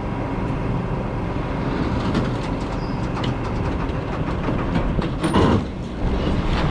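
Heavy fire pumper truck coasting down a tilted deck trailer, its tyres rolling over the steel-and-wood deck in a steady low rumble with scattered clicks. A loud clunk a little over five seconds in.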